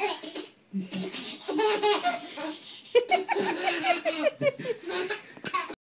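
A baby laughing in repeated belly laughs and giggles, ticklish laughter as a cat licks its toes. The laughs come in short runs with brief pauses and cut off abruptly near the end.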